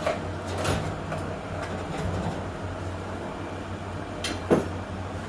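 A few short knocks and clunks of hand work on a vise being mounted to a bench, the loudest about four and a half seconds in, over a steady low hum.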